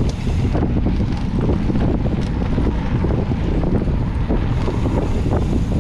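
Wind buffeting a handlebar-mounted action camera's microphone as a mountain bike rolls along a dirt singletrack. Frequent short clicks and rattles come from the bike jolting over bumps.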